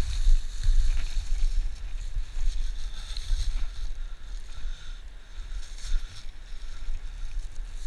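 Wind buffeting the camera microphone in a loud, uneven low rumble, with footsteps on dry leaves and twigs.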